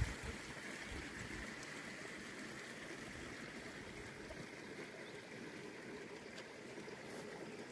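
Steady, even rush of a mountain stream flowing. In the first second or so a few low gusts of wind rumble on the microphone.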